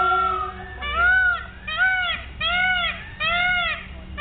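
Peacock calling: a run of short, arched honking calls, about one every 0.8 seconds, beginning about a second in.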